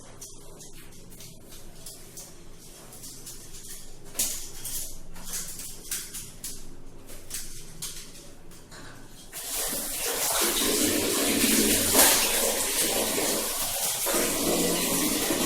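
Water starts running about two-thirds of the way in, a steady, dense rush, after a quieter stretch of scattered light clicks.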